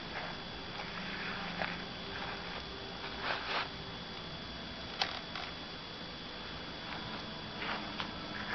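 Electric pedestal fans running with a steady hum and whir, broken by a few brief rustles and a sharp click about five seconds in.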